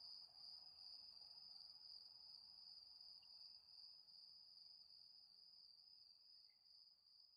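Faint, steady high-pitched trilling of crickets, one unbroken insect chorus that fades a little near the end.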